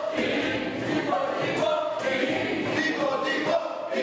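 A group of people singing together, choir-like.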